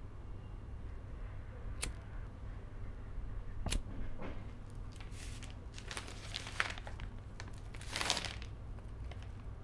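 Someone striking a light by hand in the dark: two sharp clicks, then three scraping strikes later on, over a steady low room hum.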